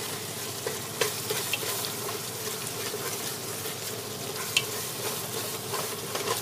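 Ground beef sizzling as it browns in a metal stockpot, stirred with a wooden spoon that scrapes and knocks against the pot a few times, over a steady low hum.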